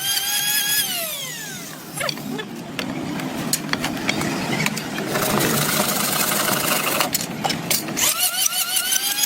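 An electric power tool's motor whining steadily, then spinning down about a second in. Several seconds of scraping and clicking follow, and the motor spins back up to speed about eight seconds in.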